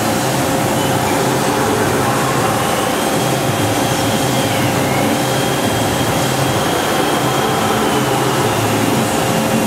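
Okuma MC-4VAE vertical machining center running a test program: a steady machine hum with a faint high whine that comes in a few seconds in, rises, dips briefly about halfway, then holds.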